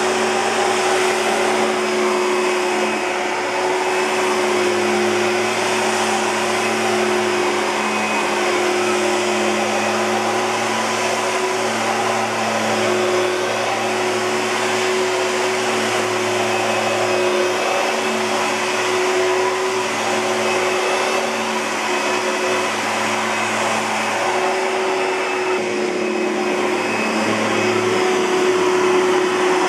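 Oreck Magnesium LW100 lightweight bagged upright vacuum cleaner running steadily: a constant motor hum over a rush of air, wavering only slightly.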